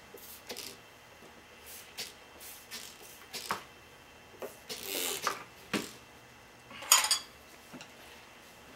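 Short squirts of a trigger spray bottle and handling clicks as RuGlyde lube is sprayed around a motorcycle tire bead, then one sharp metallic clank about seven seconds in, the loudest sound, as a tire iron strikes the spoked wheel rim.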